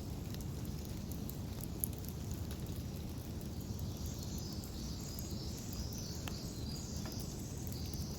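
Rain falling on a converted minivan's roof, heard from inside: a steady low drumming with scattered sharp drop ticks. A higher hiss joins about four seconds in.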